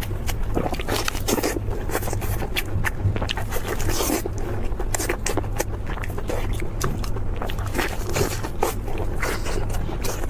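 Close-miked crunchy eating: a rapid, irregular run of crisp crackles from biting and chewing crispy food, over a steady low hum.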